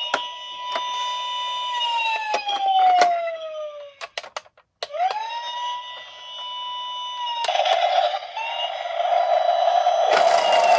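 Toy police car's electronic siren wailing: a tone that rises quickly, holds, then slides slowly down, cutting out for about a second after four seconds before starting again. Sharp plastic clicks run through it, and a burst of broader noise joins near the end.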